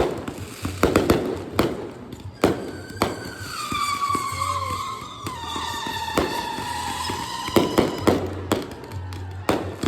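Fireworks going off: a string of sharp bangs, with a whistling firework in the middle that sounds for about five seconds and slowly falls in pitch.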